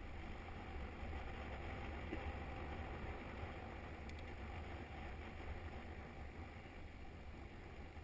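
Wind buffeting the microphone of a camera on a moving bicycle: a steady low rumble, with the hiss of tyres rolling on a tarmac lane.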